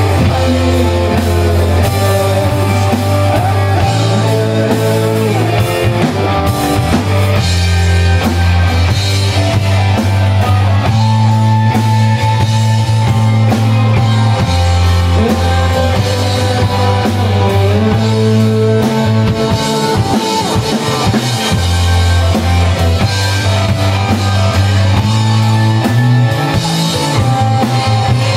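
Live rock band playing: electric guitars over bass guitar and drum kit, with sustained bass notes changing every few seconds.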